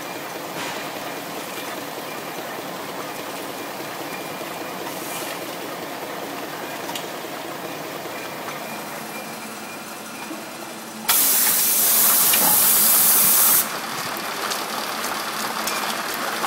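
Boehl BSB 450 VA orbital stretch wrapper running steadily as its film ring wraps a pipe bundle on the roller conveyor. About eleven seconds in, a loud hiss starts suddenly, lasts about two and a half seconds, then cuts off, leaving the machine's running noise.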